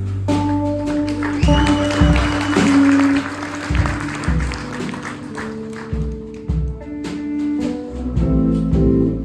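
Band music: held instrument notes over a bass line and regular drum hits, with a noisy wash from about one and a half to three and a half seconds in.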